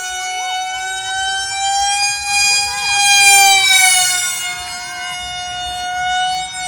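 Radio-controlled model aircraft in flight, its motor and propeller giving a steady high whine. The whine swells louder around the middle, then eases off, its pitch drifting slightly as the plane passes.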